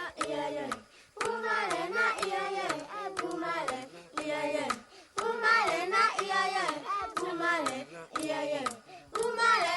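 Voices singing an unaccompanied song in short phrases with brief pauses, with hand claps alongside.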